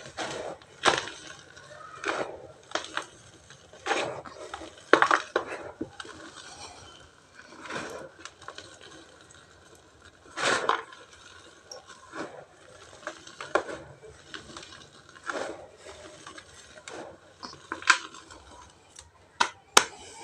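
Dry pure cement and ash chunks crunching and crumbling as they are broken apart: separate sharp crunches every second or two, irregularly spaced, with louder ones about halfway through and near the end.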